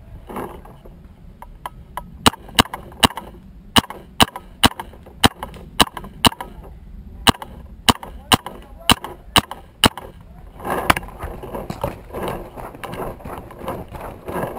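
Paintball marker firing about seventeen single shots, roughly two a second. This is followed from about eleven seconds in by running footsteps crunching through dry leaf litter.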